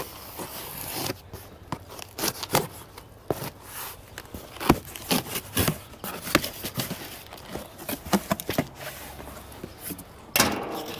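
Cardboard boxes and packaging being handled and opened: irregular knocks, scrapes and rustles, with one sharper knock a little under halfway through.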